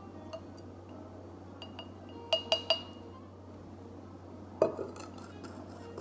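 Metal spoon stirring inside a glass Mason jar, clinking three times in quick succession about halfway in, with a bright ring from the glass, plus a few lighter ticks. A single louder knock comes about a second and a half later.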